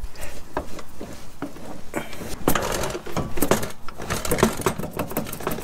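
Metal clicking and knocking as a new front CV axle shaft is shoved and jiggled onto the splined intermediate stub shaft to snap it over the C-clip. The clatter is irregular and grows busier about halfway through.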